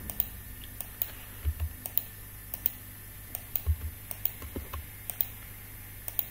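Computer keyboard keys tapped in short irregular runs, with a few soft low thumps, as values are entered into the pattern-making software.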